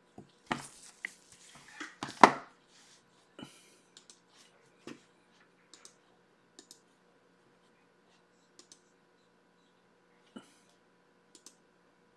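Objects being handled and set down on a desk: a cluster of clicks and knocks in the first few seconds, the loudest about two seconds in, then scattered light clicks.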